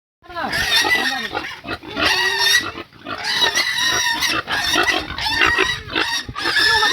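Pig squeals: loud, high, harsh calls one after another, about one a second with hardly a break, starting abruptly.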